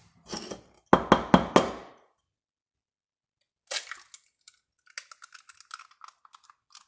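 A large chicken egg being cracked open: four sharp knocks of the shell against a hard edge about a second in, another crack a few seconds later, then a run of small crackles and clicks as the shell is pulled apart. It holds a double yolk.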